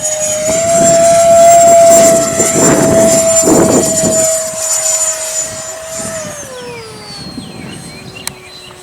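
E-flite Viper 64mm electric ducted-fan RC jet flying, its fan giving a loud, steady high whine. About six seconds in the pitch drops and the sound fades as it eases off or moves away.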